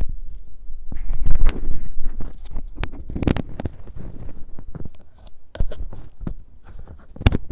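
Someone moving about and handling things: scattered knocks, thumps and rustling, loudest about a second in and about three seconds in, with a sharp click near the end.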